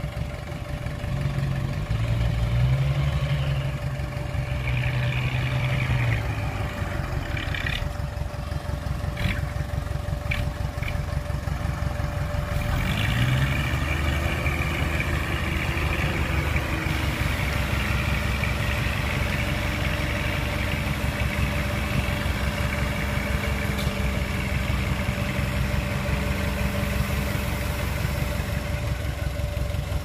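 Heavy diesel engine of earthmoving machinery running steadily. There are a few knocks between about eight and eleven seconds in, and the engine pitch rises briefly around thirteen seconds.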